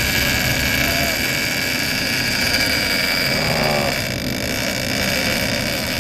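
Charter boat's engines running steadily underway, a constant rush of engine and water noise with a steady high whine over it.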